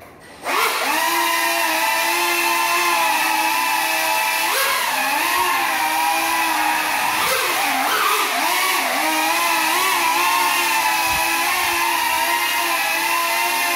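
Small FPV quadcopter's motors whining in a steady pitched buzz, flying on broken propellers. The motors stop briefly at the start and spin back up about half a second in. The pitch dips and rises with throttle changes from about four to nine seconds in, then holds steady.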